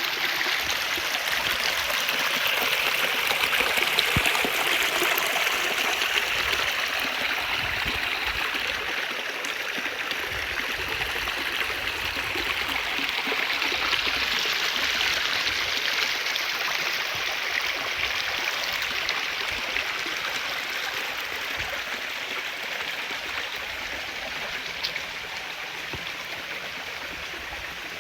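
Mountain stream rushing and gurgling over rocks, a steady even flow that eases slightly in loudness toward the end.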